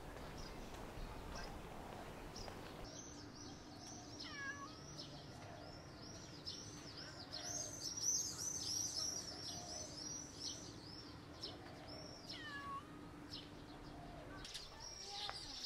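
Many birds chirping, starting about three seconds in: quick, high chirps overlapping thickly, with a longer call sliding steeply down in pitch twice, about four and twelve seconds in. A faint low steady hum runs under the chirping.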